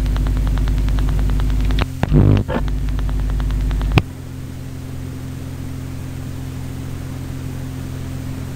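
Shortwave radio reception noise: loud mains hum with a rapid ticking interference buzz and a brief louder burst about two seconds in. At about four seconds a click cuts it back to steady static hiss with fainter hum.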